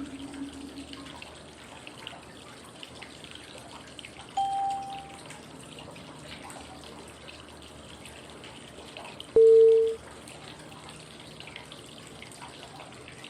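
Steady flowing-water white noise with short electronic cue tones about five seconds apart that mark the inhale, hold and exhale steps of 5-5-5 breathing. A higher tone comes about four seconds in, then a louder, lower tone about nine seconds in that cuts off after half a second.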